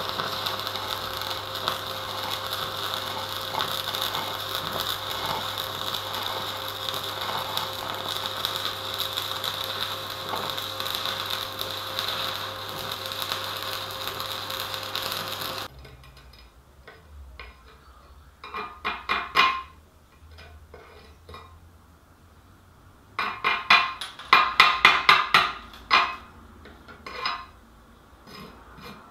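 Stick (arc) welding on thin sheet steel: the arc crackles steadily over a low hum for about fifteen seconds, then cuts off abruptly. After a pause, a chipping hammer knocks slag off the weld bead in quick runs of sharp metal strikes.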